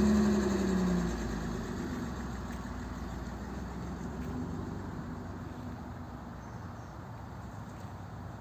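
A motor vehicle engine running: a pitched drone for the first second or so, then a steady low hum that fades slightly.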